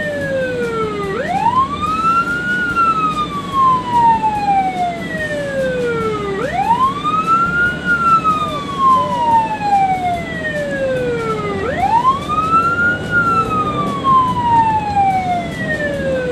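Ambulance siren on a slow wail, rising quickly and then sliding slowly down, about every five seconds, three times over. Road-traffic noise runs steadily underneath.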